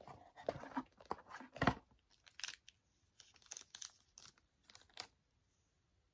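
Thin clear plastic sleeve crinkling and rustling as it is worked off a pair of metal-framed sunglasses. The crackling is dense at first, loudest a little under two seconds in, then thins to scattered crinkles that stop about five seconds in.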